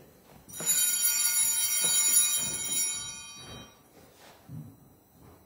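A small bell rung, its bright, high ringing starting about half a second in and dying away over the next few seconds.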